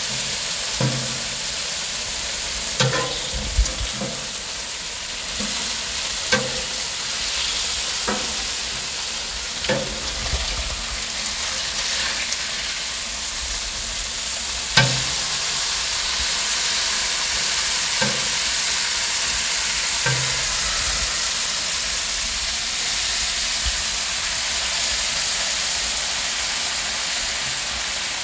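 Bacon strips sizzling on the hot steel top of a Blackstone flat-top griddle, a steady hissing spatter. A metal spatula clicks and scrapes against the griddle about ten times as the strips are turned, the sharpest knock about halfway through.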